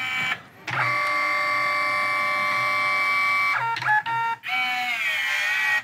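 Kodak Instant Dock dye-sublimation photo printer running its paper-feed motor partway through a colour print. The motor gives a steady whine of several tones at once. It stops briefly a few times and stutters, then a slightly wavering whine near the end cuts off abruptly.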